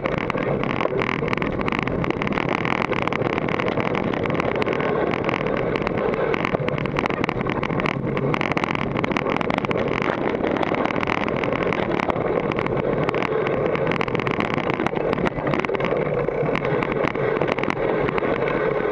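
GT Force Carbon mountain bike running downhill over a dirt trail, heard through a camera mounted on the bike: a constant clatter of many quick rattles and knocks from the bike's parts, over steady tyre noise.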